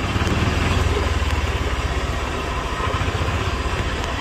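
Golf cart driving along a dirt road, giving a steady low rumble from its motor and wheels.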